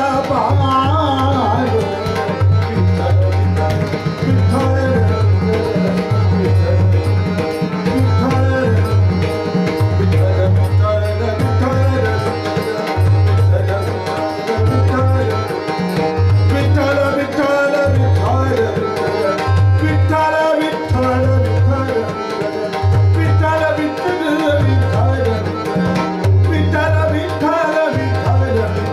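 Tabla accompanying a male voice singing a Marathi bhajan, with deep bass-drum strokes about once a second under a steady rhythm. Sustained pitched accompaniment runs beneath the singing.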